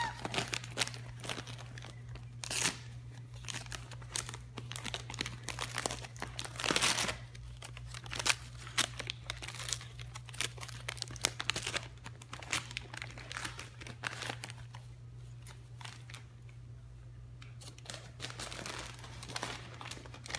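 Wire fox terrier tearing and crumpling gift wrapping paper with his nose and paws: irregular crinkling and ripping in uneven bursts, louder a few times in the first half and quieter later on.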